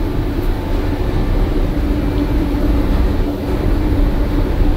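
Steady drone of shipboard machinery with a constant low hum and rumble on a container ship's deck. No hiss of escaping air can be heard, which shows the freshly repaired and repressurised deck air line is not leaking at its flanges.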